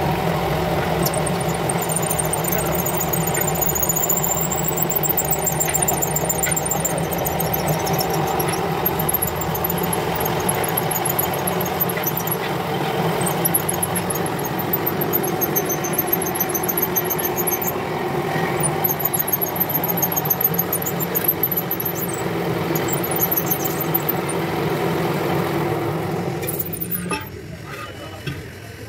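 Drill press running steadily while its cutter bores into a cylinder head, with high, wavering squeals from the cut coming and going. Near the end the press shuts off and the sound drops away.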